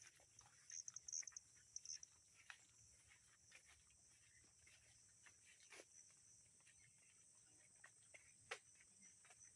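Near silence: faint rural outdoor ambience, with short bursts of high-pitched chirping in the first two seconds and a few scattered light clicks.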